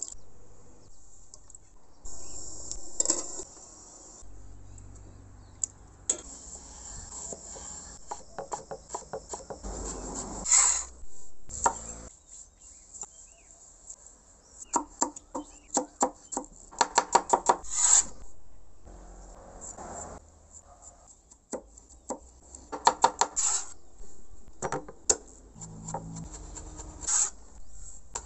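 Kitchen knife chopping on a wooden cutting board, in quick runs of taps with scraping and rubbing sounds in between.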